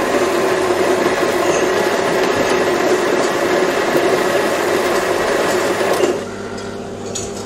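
Commercial espresso machine running as espresso pours: a loud, steady pump buzz that drops to a quieter hum about six seconds in.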